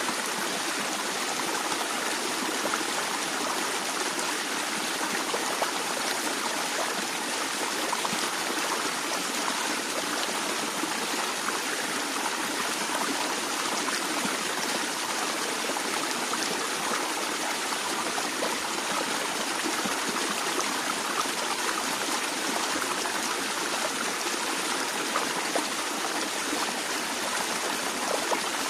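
Stream water flowing and trickling, a steady rushing with small splashes.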